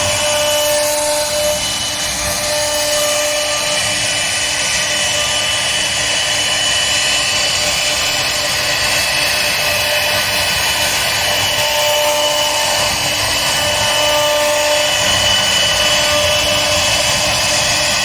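CNC router cutting wood: the steady spindle-and-cutter noise of the machine at work, with short faint tones that come and go every few seconds.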